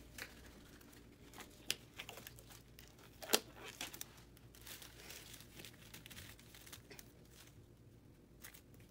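Faint crinkling and rustling of sterile gloves and their paper wrapper as the gloves are pulled on and handled, with a few sharp clicks, the loudest about three seconds in.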